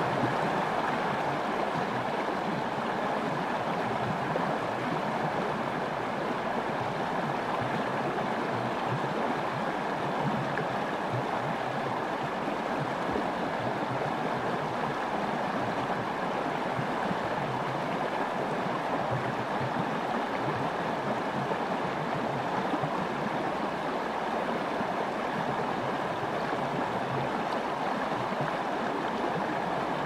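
Shallow river rapids rushing steadily over stones, an even wash of water noise.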